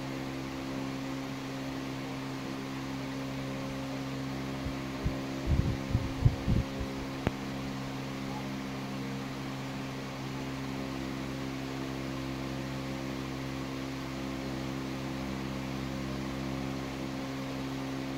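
Steady low hum of a running machine or electrical appliance, holding several fixed pitches, with a cluster of short, low thumps about five to seven seconds in.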